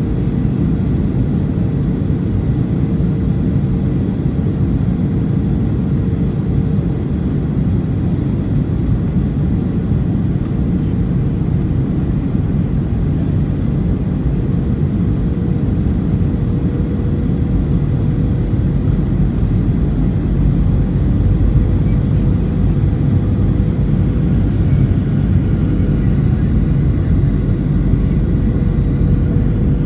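Cabin noise of a Boeing 737 on approach, heard from inside the cabin over the wing: a steady low rush of engine and airflow noise with a steady hum above it, getting a little louder after about twenty seconds.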